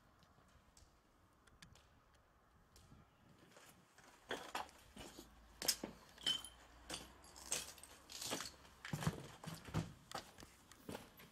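Footsteps crunching and clinking over rubble, plaster and broken debris on a concrete corridor floor. They start about four seconds in after a few faint clicks and go on at a walking pace.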